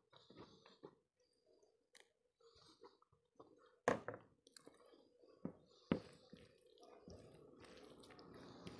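Close-miked sounds of eating rice by hand. There are a few faint mouth clicks, then a sharp clink about four seconds in as dal is served onto the rice. From about seven seconds come soft, wet squishing sounds of fingers mixing rice and dal.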